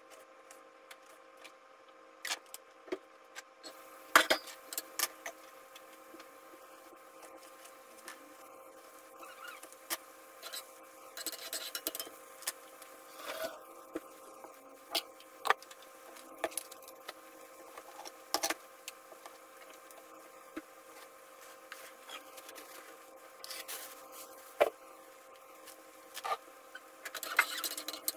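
Kitchen prep sounds: scattered knocks and clicks of a knife on a wooden cutting board and of utensils being handled, with stirring in a frying pan near the end, over a faint steady hum.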